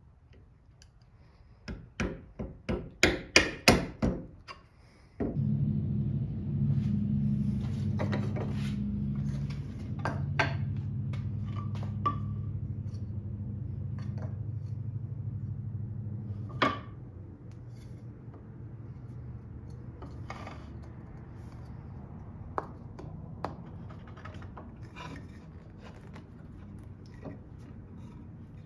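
About ten sharp hammer taps on wood, coming quicker and quicker. Then a steady machine hum starts abruptly and runs on with scattered knocks, dropping in level about two-thirds of the way through.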